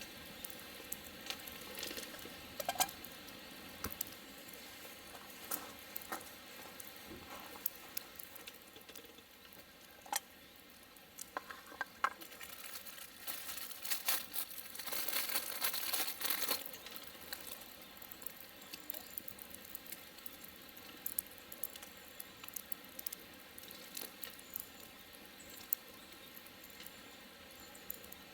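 Food sizzling in a skillet over a campfire, with scattered sharp clicks. The sizzle swells louder about halfway through for a few seconds, then settles back.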